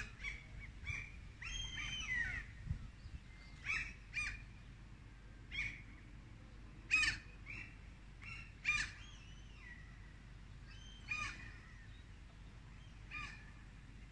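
Birds calling: a string of short, sharp calls every second or so, some with quick falling glides, the loudest two about halfway through, over a faint low background rumble.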